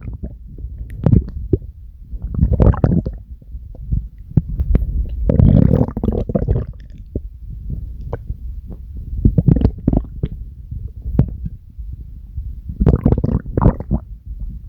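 Human stomach growling and gurgling: low bubbly rumbles in several louder bouts, with quick pops scattered between them.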